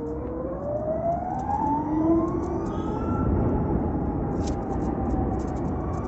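Ather 450X electric scooter accelerating: its motor and drive whine rises steadily in pitch over about three seconds, then holds, over a steady rush of wind and road noise.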